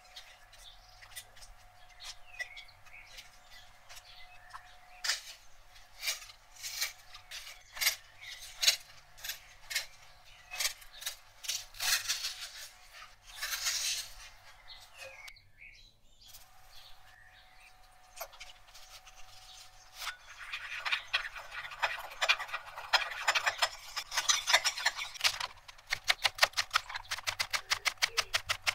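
A kitchen knife cutting crisp romaine lettuce leaves, with scattered crunching snaps. In the second half a knife slices an onion on a cutting board in a fast, even run of strokes tapping the board, several a second.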